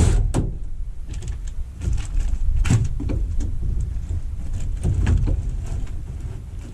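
A steady low rumble with scattered knocks and clatters, a little louder around three and five seconds in.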